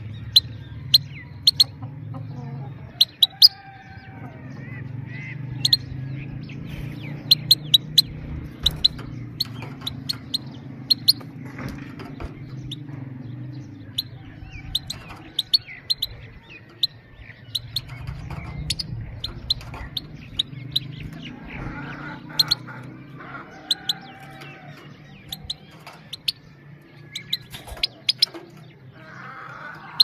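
Female Himalayan goldfinch giving short, sharp 'pit pit' call notes, singly and in quick clusters of two to four, with gaps of a second or more between them. The calls are those of a hen not in breeding condition.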